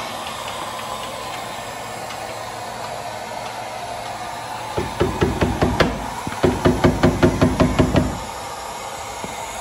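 A rapid run of sharp metallic knocks, about six a second for some three seconds in the middle, from the dent-pulling work on a car door, over a steady background hiss.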